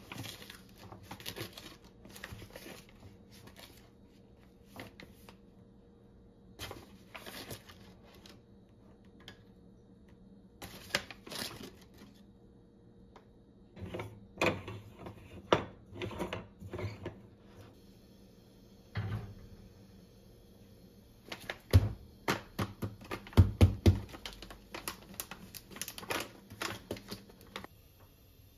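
Kitchen handling sounds while preparing a stovetop moka pot: rustling of a foil coffee bag, then scattered taps and clicks of the metal pot being filled and screwed together, with a cluster of heavier knocks a little past two thirds of the way through.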